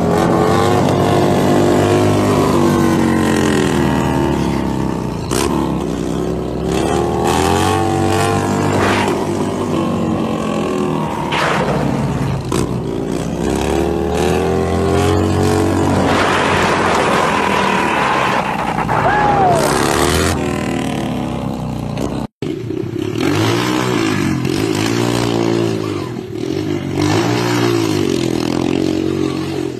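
Motorcycle engines revving up and down during wheelies. First a large street motorcycle holds long rising and falling revs. After a sudden break about three-quarters of the way through, a dirt bike gives short revs that repeat about once a second.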